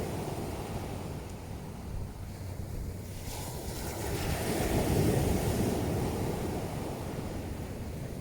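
Sea waves breaking and washing up a pebble beach. The surf swells to a peak about five seconds in, with a hissing wash, over a low rumble of wind on the microphone.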